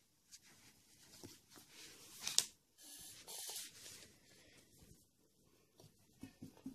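Faint rubbing and rustling of a cloth wiped over the hands to take off a salt scrub, with a short sharp scrape about two seconds in.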